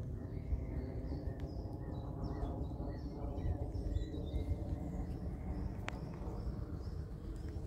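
Steady low rumble of a jet airliner descending on approach, passing above the cloud layer, with small birds chirping faintly.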